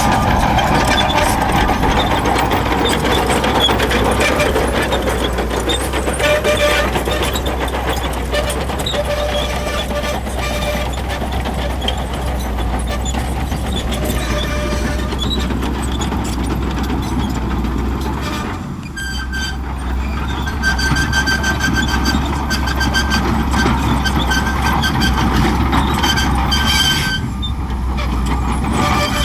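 Shantui crawler bulldozer working: its diesel engine runs steadily under a dense clatter of steel tracks. A high whining tone joins in for several seconds past the middle.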